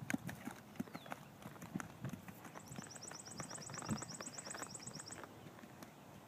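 A ridden horse's hooves beating on grass turf at a canter, dull uneven thuds that fade slightly as it moves away. A rapid high trill of about eight chirps a second runs for a few seconds in the middle.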